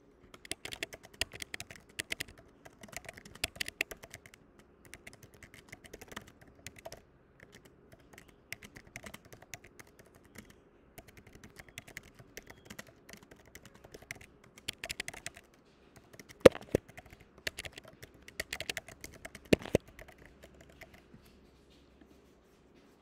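Typing on a computer keyboard: a steady run of quick key clicks, with two louder keystrokes about two-thirds of the way through.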